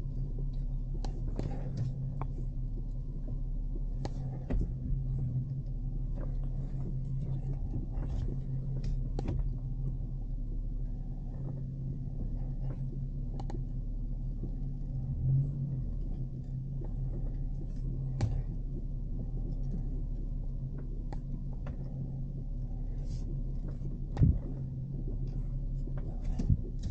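Vehicle engine and road noise heard from inside the cab while driving slowly, a steady low rumble with scattered light clicks and knocks, and one louder knock near the end.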